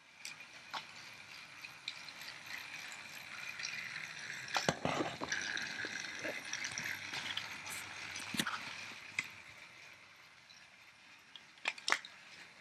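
Battery-powered Trackmaster Spencer toy engine running along its plastic track: its small motor and gears whine, growing louder toward the middle and fading away again, with scattered clicks and clacks.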